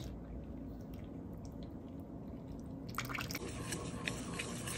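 Thick jaggery syrup pouring faintly into flour in a stainless steel bowl, then from about three seconds in, a metal utensil stirring and scraping the flour and syrup against the bowl, with small clicks.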